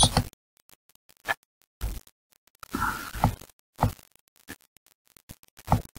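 Scattered short clicks and knocks with silence between them, and a brief rustling noise about three seconds in.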